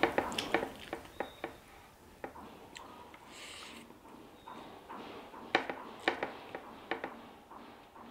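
Close-miked eating sounds: wet clicks and smacks from chewing and from fingers working rice and mutton curry on a plate, with a brief hiss about three and a half seconds in.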